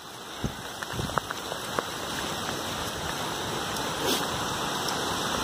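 Heavy storm rain with rushing floodwater: a steady hiss that grows louder over the first couple of seconds and then holds, with a few sharp taps in the first two seconds.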